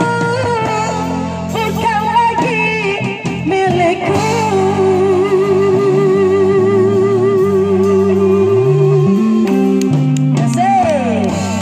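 A woman singing through a microphone and PA over amplified electric guitar, holding one long note with vibrato through the middle of the passage.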